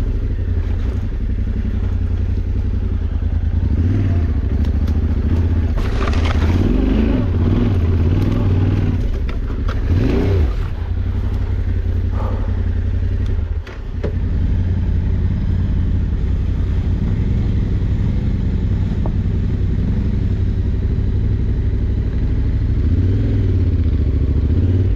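Adventure motorcycle engine running while being ridden off-road, the revs rising and falling several times, with clatter from the bike. The engine note drops briefly about fourteen seconds in.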